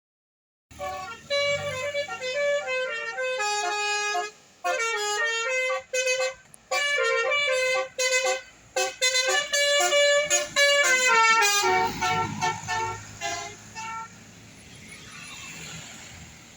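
Bus 'telolet' horn, a set of multi-tone air horns, playing a quick melody of stepped notes in a series of short blasts. About twelve seconds in, the low rumble of the passing bus joins as the horn trails off.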